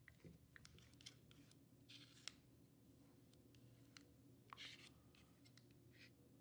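Faint scattered clicks and short scrapes of small metal lens parts being handled during reassembly of a Nikon Ai-S 85mm f/2 lens.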